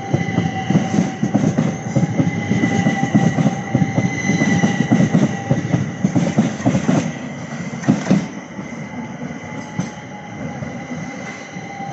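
Class 375 Electrostar electric train running through the station, its wheels rumbling and clattering over the rail joints under a steady high whine. The noise eases off after about eight seconds.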